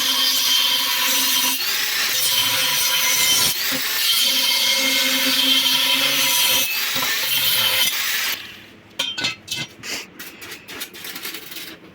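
A power tool runs steadily under load, with a few brief dips, then stops about eight seconds in. A quick series of sharp knocks and clatters follows.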